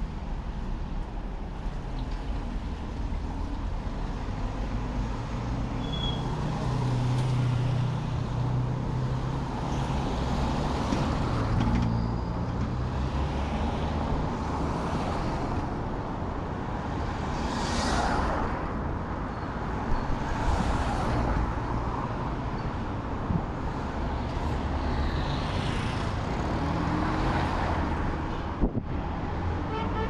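Road traffic: a steady low rumble with vehicles passing one after another, each swelling and fading over a second or two every few seconds.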